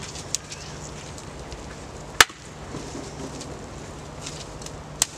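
A mossy, damp branch being broken into lengths by hand, with sharp woody cracks: a small one just after the start, then two loud snaps about three seconds apart.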